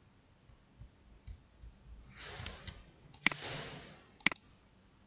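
Two sharp computer mouse clicks about a second apart, with a soft hiss before and between them.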